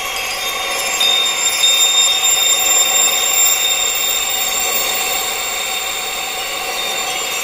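Tinnitus sound-therapy track: a steady wind-like hiss with several high-pitched tones held over it.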